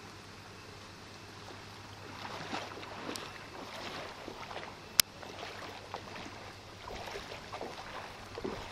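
Floodwater on a street splashing and sloshing irregularly, starting about two seconds in, over a steady low hum. One sharp click about five seconds in is the loudest sound.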